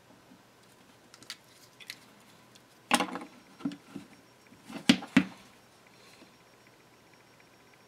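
A few light clicks, then several sharp knocks of small objects handled and set down on a worktable while a fin is glued onto a swimbait master; the loudest knocks come about three seconds in and again about five seconds in.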